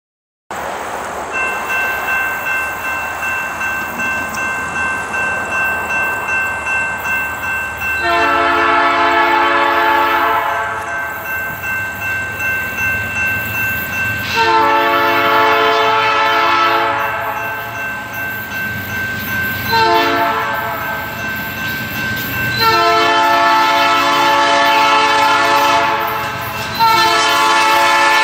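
Diesel locomotive air horn on an approaching CN freight train led by a C44-9W, blowing a chord in a long, long, short, long pattern with a further long blast near the end: the grade-crossing warning signal. Before the first blast, about 8 s in, there is the steady rumble of the approaching train.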